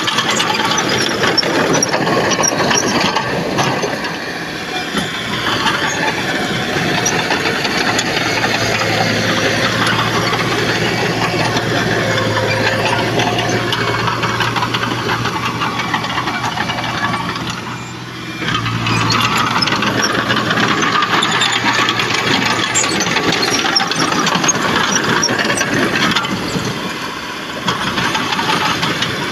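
Heavy diesel engine of an earthmoving machine running hard under load, with a low steady hum beneath a dense clatter. It eases off briefly three times: about four seconds in, around eighteen seconds, and near twenty-seven seconds.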